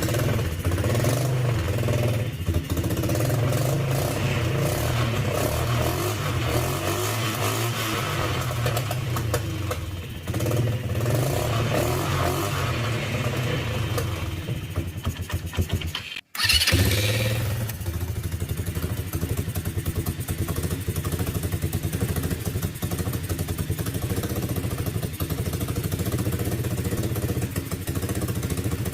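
Coolster ATV's small single-cylinder four-stroke engine running just after start-up on a freshly replaced carburetor. There is a split-second gap about halfway through, then it runs on.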